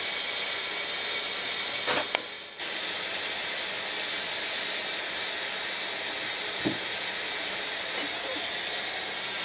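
Steady hiss that cuts out briefly about two and a half seconds in, then carries on evenly, with a faint click just before the break.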